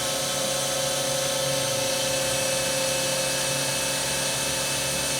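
Spindle of a Cincinnati Milacron Arrow 500 vertical machining center running steadily at 2,000 RPM: an even whine of several held tones.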